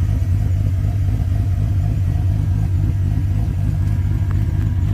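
Oldsmobile Cutlass engine running steadily at an even low pitch, with no revving.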